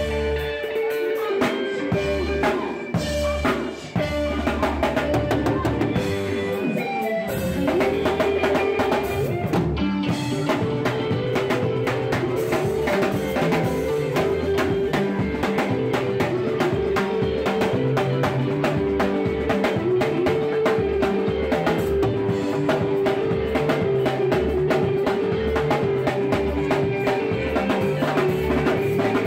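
Live band playing a sebene, a fast Congolese dance groove, on drum kit, electric bass and keyboard, with a steady beat of drum strokes. The band thins out briefly a few seconds in, then comes back in full.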